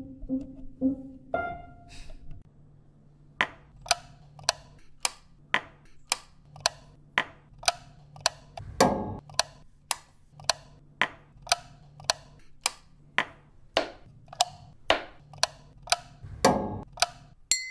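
A few last piano notes ring out, then a wall light switch is flicked over and over, clicking in an even rhythm of about two clicks a second. Two heavier thumps fall among the clicks, one near the middle and one near the end.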